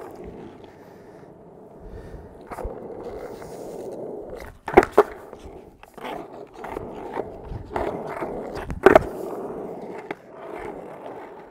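Skateboard wheels rolling on rough concrete, broken by sharp clacks of the board hitting the ground: a light one about two and a half seconds in and two loud ones about five and nine seconds in.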